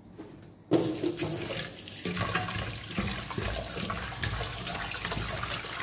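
Kitchen tap running into a steel pot in a stainless-steel sink while raw beef chunks are washed by hand, with small splashes and clicks as the meat is stirred. The water starts about a second in.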